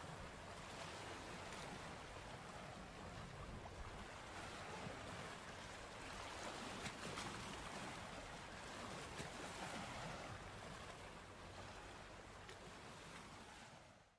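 Faint ocean surf washing onto a beach, a steady wash of waves that fades out at the very end.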